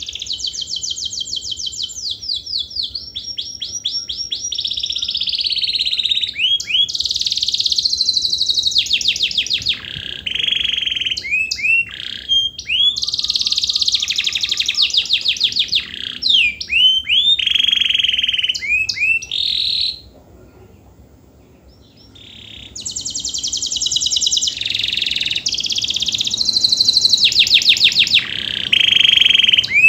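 Domestic canary singing a long, continuous song of rapid trills and rolls at changing speeds, mixed with short slurred whistles. The song breaks off for about two seconds roughly two-thirds of the way through, then resumes.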